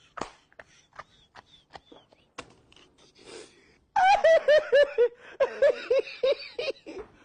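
Scattered faint clicks and taps, then about four seconds in a high-pitched laugh: a quick, even run of 'ha' sounds, about four a second, lasting about three seconds.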